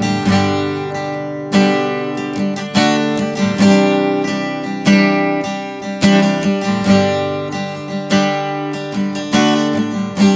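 Background music: an acoustic guitar strumming chords, with a new strum about every second and a quarter.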